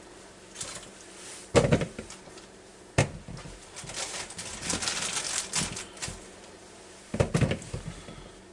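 Small whole potatoes being put into a container by hand: a few knocks as they drop in, with softer rustling and clatter between.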